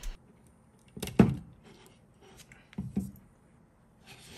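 A few knocks and light clatter from a 3D printer extruder head being handled and taken apart. The loudest knock comes about a second in and another near three seconds.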